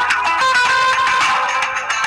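A mobile phone ringtone: a plucked guitar melody that thins briefly near the end before carrying on.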